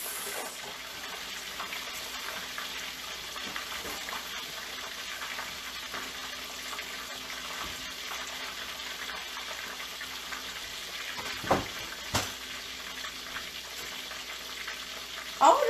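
Egg rolls deep-frying in hot oil in a pot: a steady sizzle, with two sharp knocks a little under a second apart about eleven and a half seconds in.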